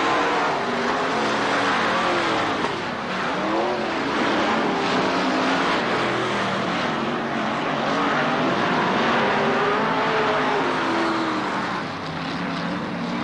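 Dirt late model race cars' V8 engines running hard as the pack laps the track, the engine pitch rising and falling as cars accelerate and pass.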